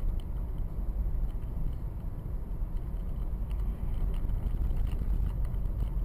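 A car's engine and road noise, picked up inside the cabin by a dashcam: a steady low rumble with a few faint clicks.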